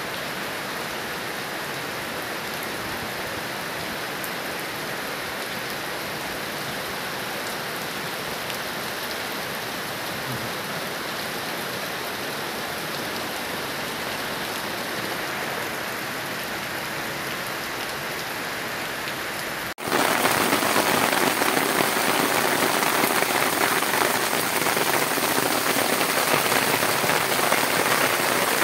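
Heavy rain falling on wet pavement and street, a steady hiss. About twenty seconds in it cuts suddenly to a louder, denser downpour.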